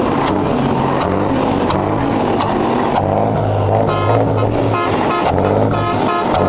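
Scania 113H truck's straight-six diesel engine running and being revved. From about four seconds in, a high pitched tone sounds in short repeated bursts over the engine.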